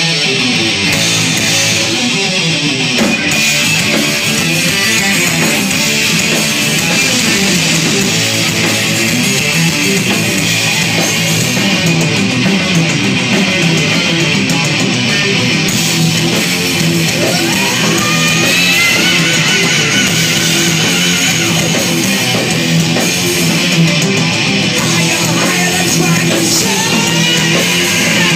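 Heavy metal band playing live through a club PA: distorted electric guitars, bass and drums at a steady loud level, with a note gliding upward about two-thirds of the way through.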